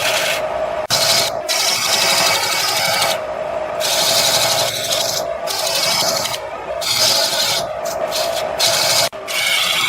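Wood lathe running, a steady motor hum under the scraping rasp of a turning tool cutting the spinning wood. The cutting noise stops and starts as the tool comes off and back onto the work.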